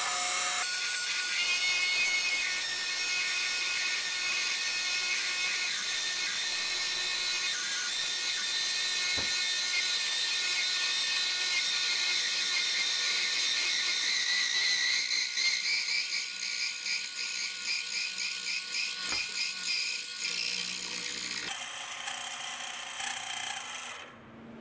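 Mini-mill boring bar cutting the cylinder bore, with a high-pitched screech ringing through the cut that rises in pitch about midway and pulses in the second half. The machinist takes the screech for a sign that the bar ran in crooked because the block had not been squared up. The cutting noise drops away near the end.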